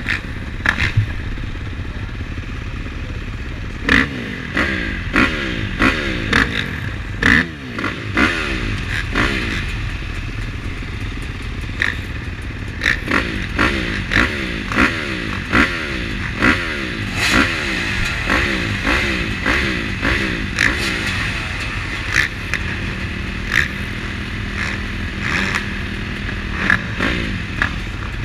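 A line of motocross bikes at the starting gate, their engines idling and blipped again and again in quick throttle revs, each a short rising sweep, sometimes several in a second. Towards the end, one engine is held at a steady pitch for a few seconds.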